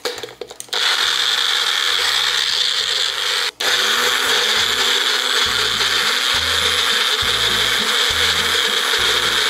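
Magic Bullet personal blender chopping mushrooms and garlic. A few clicks come as the cup is pressed onto the base, then the motor whirs loudly and steadily from just under a second in. It stops for an instant about a third of the way through, then runs on.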